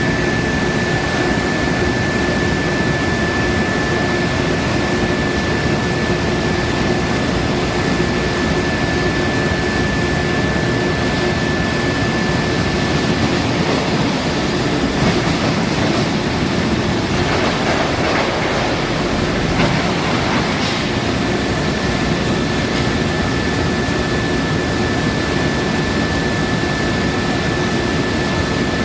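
Induction billet heating furnace running: a steady high whine over a constant loud machinery noise.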